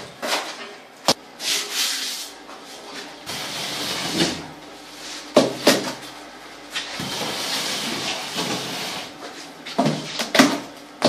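Metal straightedge scraped across wet cement render on a wall, in long hissing strokes, with a few sharp knocks of the tool in between.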